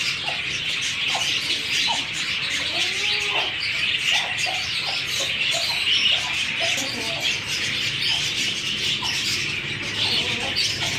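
A flock of caged budgerigars chattering nonstop, with scattered short, lower bird calls mixed in.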